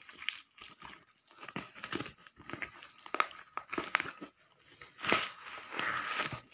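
A taped brown paper parcel being torn open and crumpled by hand: irregular rustling, crinkling and tearing of paper and plastic wrapping, with a longer, louder spell of crinkling about five seconds in as a bubble-wrapped book is pulled out.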